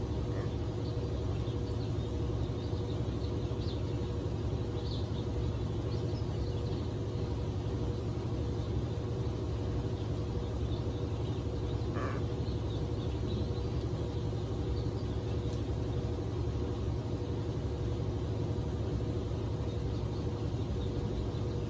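Steady low hum with a faint constant tone, with faint bird chirps and one short bird call about halfway through.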